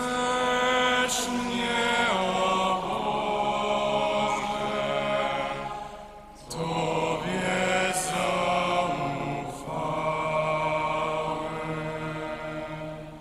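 Slow liturgical chant of the psalm, sung in long held phrases. It breaks briefly about six and again about nine and a half seconds in, and fades away near the end.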